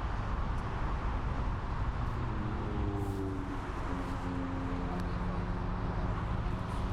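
Distant jet aircraft engines making a steady low rumble, with a faint hum that drops slightly in pitch from about two seconds in.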